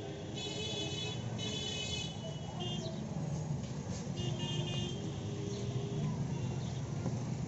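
Busy street traffic with vehicle horns honking: two horn blasts in the first two seconds, another around four seconds in, over a steady traffic rumble.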